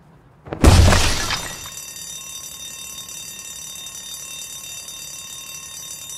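A bank wall smashed open, a sudden loud blast with crumbling debris about half a second in. It is followed by a bank alarm bell ringing steadily.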